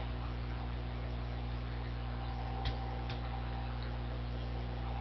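Two computer mouse clicks, under half a second apart, a little under three seconds in, over a steady electrical mains hum and hiss from the recording setup.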